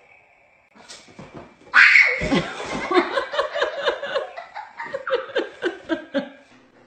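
Laughter breaking out suddenly and loudly about two seconds in, then running on in quick repeated bursts of several laughs a second before fading near the end.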